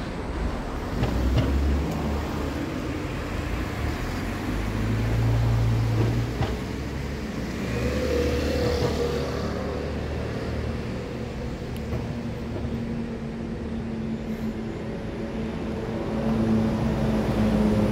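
Steady low rumble of vehicle engines out of sight, with humming tones that come and go. It grows a little louder near the end.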